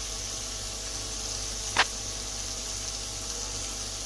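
Oil sizzling steadily in a pot where ginger-garlic paste and green chilli paste are frying, as an even hiss. A single sharp click a little under two seconds in.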